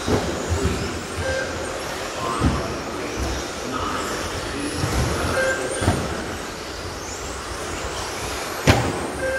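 Several radio-controlled electric racing trucks running on an indoor carpet track, their motors whining up and down in pitch as they accelerate and brake. There are thumps as trucks land or hit the rope borders, with a sharp, loud knock near the end, and short beeps every few seconds, all echoing in a large hall.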